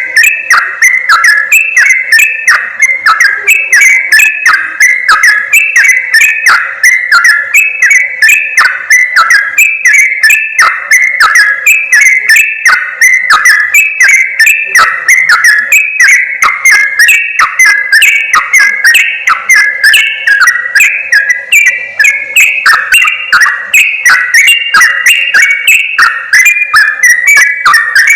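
Yellow-vented bulbul (crukcuk/trucuk) calls from a bird-lure recording: a loud, continuous chatter of short bubbly notes, several calls overlapping with no pause.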